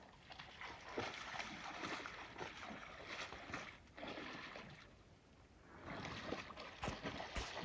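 A moose wading into a pond, with faint irregular splashing and sloshing of water that eases off about four seconds in and picks up again near the end.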